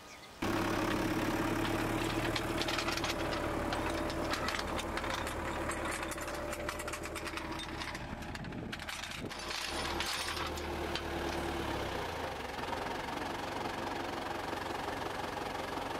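Tractor engine running steadily with a metallic rattle, cutting in abruptly about half a second in; about twelve seconds in its note shifts lower.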